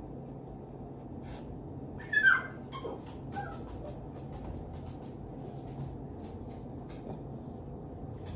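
A dog whimpering, begging for food: a short high falling whine about two seconds in and a brief faint whine a second later. Faint clicks and a steady low hum run underneath.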